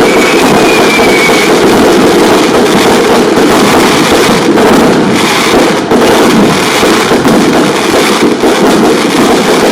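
Dense, continuous fireworks barrage: a loud unbroken wash of crackling and blasts, with a faint falling whistle that fades out about a second and a half in.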